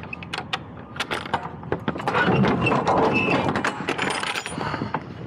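Mechanical clicking and rattling, a run of sharp clicks that grows into a louder, busier clatter for a couple of seconds in the middle.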